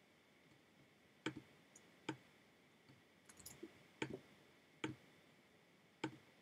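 Computer mouse clicking: five sharp single clicks spread a second or more apart, with a few fainter clicks in between, over near silence.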